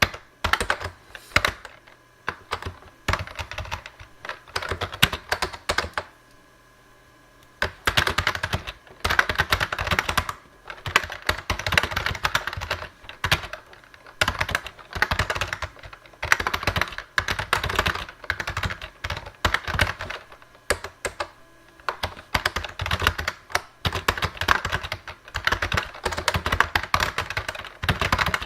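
Fast typing on a Lexmark-made Model M-style rubber-dome keyboard: a dense, irregular run of key strokes with a short pause a little over six seconds in.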